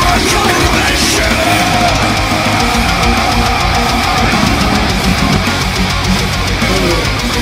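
Loud heavy rock music with electric guitar, steady throughout.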